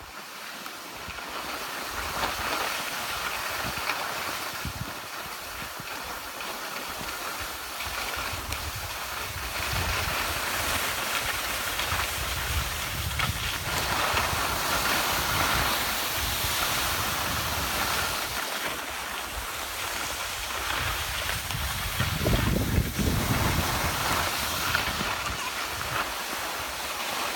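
Skis sliding and scraping over packed snow: a steady hiss, with low rumbles that come and go, loudest about 22 seconds in.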